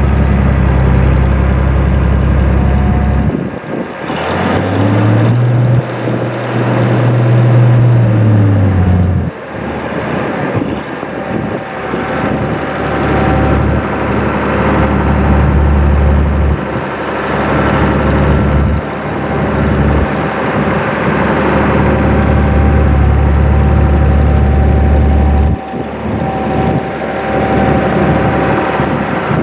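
International Farmall 656 tractor engine running close by, revving up and back down about four seconds in, then changing pitch several times as the front-end loader bucket is raised and lowered.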